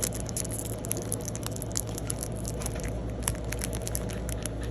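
Pokémon trading cards and their foil booster-pack wrapper being handled, giving a run of small, irregular clicks and crackles over a steady low hum.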